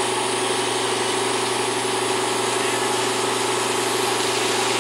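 Rice combine harvester's engine running steadily with its grain-unloading auger turning, a dense, even machine drone.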